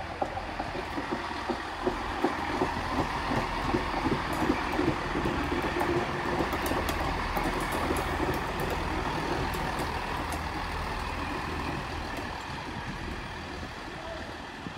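Great Western Railway Turbo diesel multiple unit passing: its underfloor diesel engines and wheels on the rails grow to their loudest about halfway through, then fade as it pulls away, with sharp clicks from the wheels along the way.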